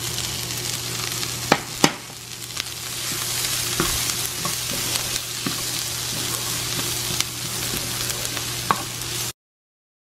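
Sliced onions frying in a pan with a steady sizzle, stirred with a wooden spatula, with a few sharp knocks of utensils against the pan, the loudest two about a second and a half in. The sound cuts off suddenly near the end.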